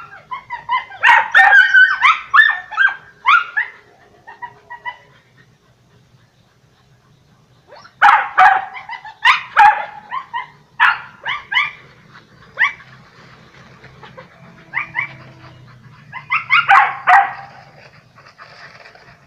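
A pack of dogs barking at a cat they are hunting. The barks come in three volleys of quick, sharp barks: one starting about a second in, one near the middle, and a short one near the end.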